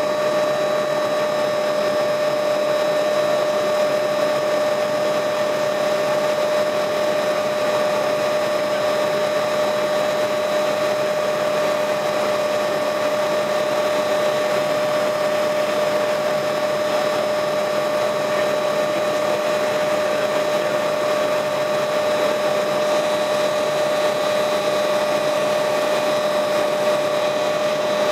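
Helicopter in flight: a steady engine and rotor drone with a constant whine, unchanging throughout.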